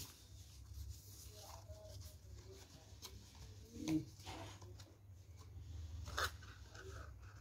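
Faint rustling and rubbing of cardstock as the flaps of a handmade paper explosion box are folded closed and the boxes nested, with one light tap about six seconds in as the lid goes on.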